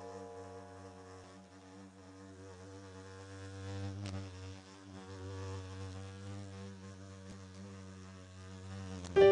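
A fly buzzing steadily, the drone wavering slightly, under the fading tail of a piano note, with a brief click about four seconds in. A loud piano note is struck right at the end.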